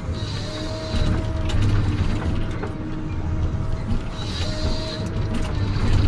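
Timber harvester head working a pine log: the machine's engine and hydraulics give a steady low drone with clicks and knocks from the head. A high whine starts and stops twice, near the start and about four seconds in.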